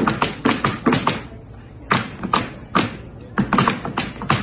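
A solo performer's percussive stamping and striking on a wooden dance floor: sharp taps and thumps in quick flurries, separated by short pauses.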